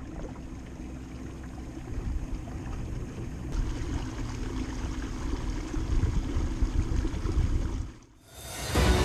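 Steady wash of water along a Hobie Pro Angler 17 kayak cruising under a Watersnake electric trolling motor, with a faint steady hum beneath the water noise. It drops out briefly near the end, and music starts.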